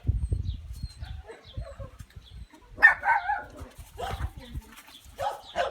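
Xoloitzcuintli (Xolo) puppies barking at play: a loud yapping burst about three seconds in, then shorter yaps near the end. There are low thumps at the start.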